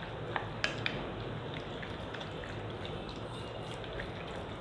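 Wet squelching with scattered light clicks as a spatula stirs raw chicken chunks through a ketchup-and-spice marinade in a glass bowl. The sharpest clicks come in the first second.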